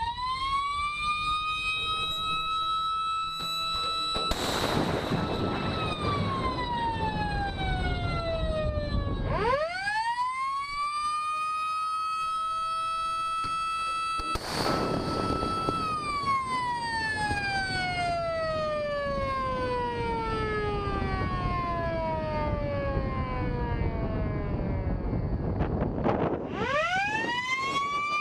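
Motor-driven warning siren on a navy ship, as sounded for a missile launch. It winds up quickly to a high wail, holds it for several seconds, then winds slowly down, and the cycle repeats. Twice a short burst of rushing noise cuts across it.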